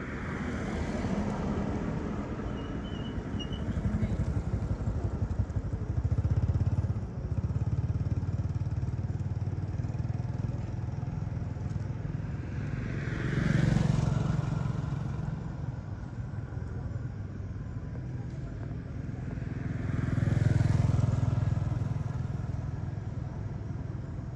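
Road traffic going by: a steady low rumble, with vehicles passing that swell and fade over a few seconds, one about halfway through and a louder one near the end.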